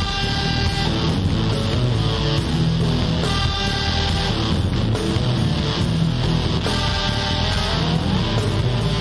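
Instrumental blues-rock background music with guitar, playing steadily.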